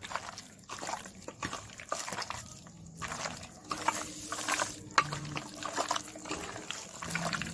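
A hand squishing and kneading raw chicken pieces in a thick yoghurt and gram-flour (besan) marinade in a steel bowl, making irregular wet squelches and small clicks.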